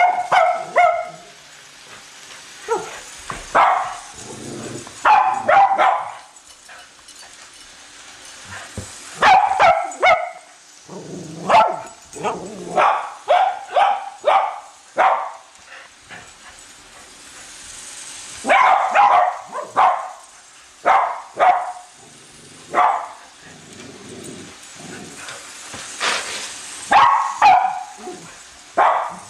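Cavalier King Charles spaniels barking in repeated bursts of several sharp barks, with short pauses between the bursts.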